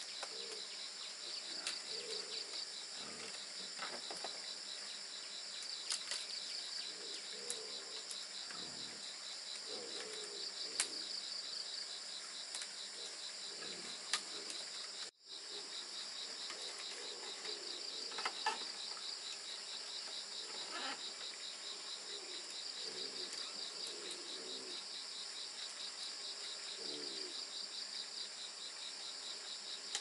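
Steady high-pitched insect trill, pulsing quickly, with rustling of dry palm-leaf thatch and a few light clicks and knocks as the leaves are tied onto bamboo battens.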